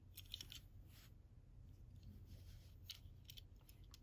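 Faint clicks and light rubbing from fingers turning a small Matchbox diecast toy pickup truck, a few soft ticks scattered over a quiet background hum.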